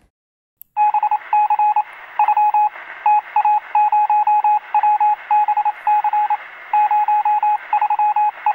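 Radio-transmission sound effect: a single beep tone keyed on and off in irregular groups of short and longer beeps, Morse-code style, over a steady hiss of radio static, starting about a second in.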